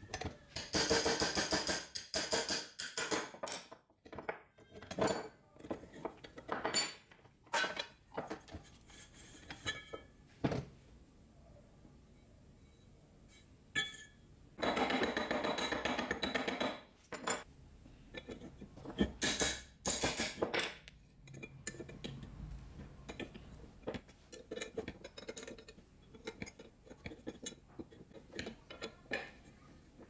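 Wrenches and steel parts clinking, knocking and scraping on a metal workbench as a concrete mixer paddle is unbolted and taken apart: scattered clinks and taps, with two louder scraping stretches of a few seconds each, one near the start and one about halfway.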